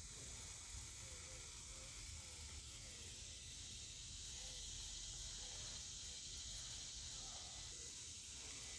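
Faint, steady high hiss of outdoor ambience with a low rumble underneath; no clear sound of the RC trucks' motors stands out.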